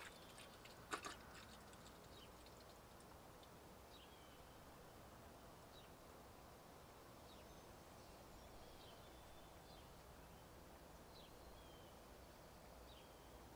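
Near silence: faint outdoor room tone with a few scattered, faint bird chirps and a single light tap about a second in.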